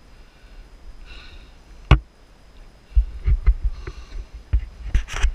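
Knocks and low thumps on a moving action-camera microphone, with wind rumble: one sharp knock about two seconds in, then a cluster of low thumps and clicks in the last two seconds.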